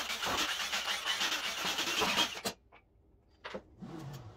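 CNC router gantry rolled by hand along new steel linear rails, the ball-bearing carriages giving a steady rolling hiss that stops suddenly about two and a half seconds in.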